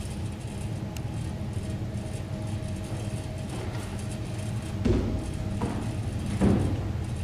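Steady low hum of room noise in a small theatre, broken by two dull thumps on the stage floor about five and six and a half seconds in as performers move about.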